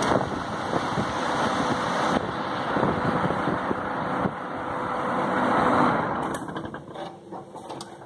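Homemade belt-driven blower fan of a Gingery foundry furnace, its sheet-metal impeller driven by a quarter-horsepower electric motor, switched on and running with a steady rush of air and a faint steady hum. It grows gradually louder, then is switched off about six seconds in and spins down.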